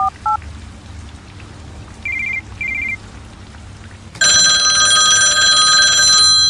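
Telephone call sound effects: the last keypad dialing tones at the very start, then two short double-beep ringback tones about 2 s in. About 4 s in, a loud telephone ring starts and keeps ringing.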